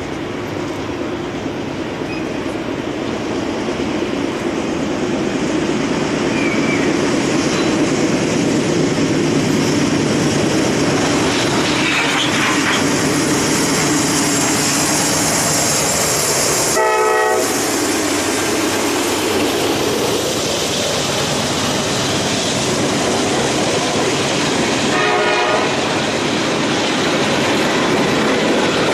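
Norfolk Southern freight train led by GE wide-cab diesel locomotives, growing louder as it approaches over the first several seconds, then the steady clatter of freight cars rolling past. Two short horn blasts sound, about two-thirds of the way in and again near the end.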